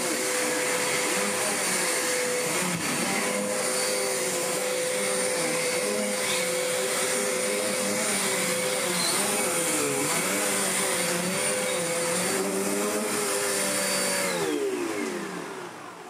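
Hoover Enigma upright vacuum cleaner running on a rug, its steady hum and whine wavering slightly as it is pushed back and forth with the brush roll on the pile. Near the end the motor winds down, falling in pitch and fading away.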